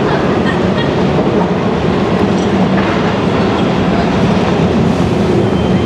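Train running on rails nearby: a loud, steady rumble that holds level throughout.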